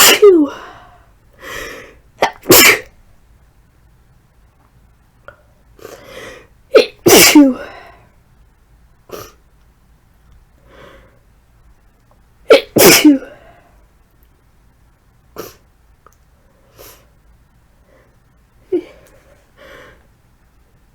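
A woman sneezing hard with the flu, about four strong sneezes a few seconds apart, each loud and sudden, with fainter short sounds in between.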